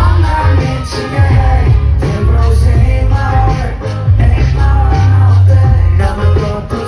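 Live rock-style band music played loud through a concert sound system at a soundcheck, with heavy bass and a singer's voice over the band.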